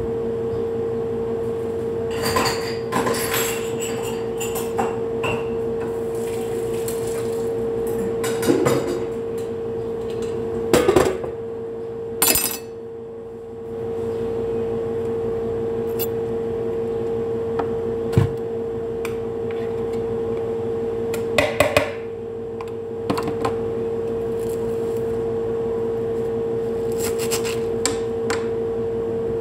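Kitchenware and utensils knocking and clattering now and then as they are handled and set down on a countertop, over a steady hum.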